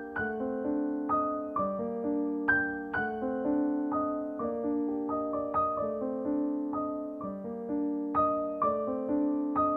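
Background piano music: a gentle melody of single struck notes that fade after each strike, about two notes a second.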